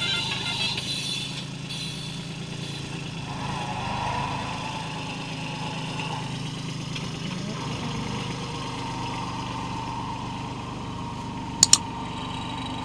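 Kubota 21 hp compact tractor's diesel engine running steadily. A quick double click comes near the end.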